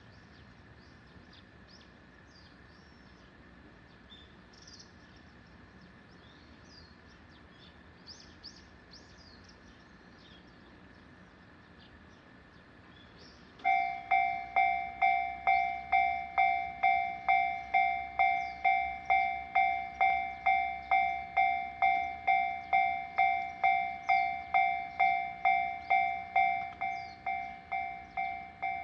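Faint small-bird chirps over quiet rural background. About halfway through, a Japanese railway level crossing's warning bell starts suddenly and rings on, a loud repeating clang about twice a second, signalling an approaching train.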